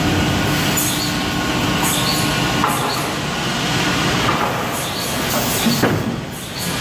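A Cursal optimizing cross-cut saw line and its belt conveyors running with a steady mechanical rumble. About five short wooden knocks are scattered through it as cut pieces of board land and move along the belts.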